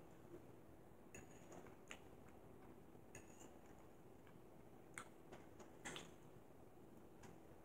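Faint, irregular clicks of a metal fork against a plate as food is scooped up and eaten, over near silence.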